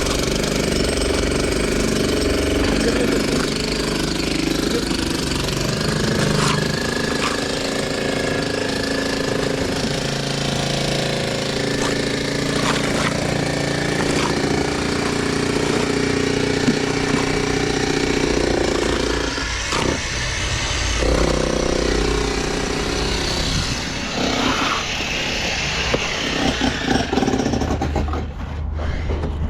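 Heavy construction machinery running steadily, an engine drone with a dense rattling noise over it, thinning out near the end.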